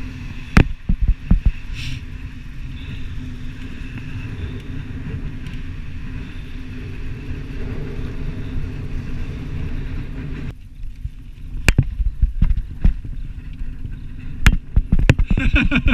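Wind buffeting the action camera's microphone over a steady low rumble of fat bike tyres rolling on sand. About two-thirds in the rumble drops and is broken by sharp knocks and rattles as the bike and camera mount jolt over the bumpy dune sand.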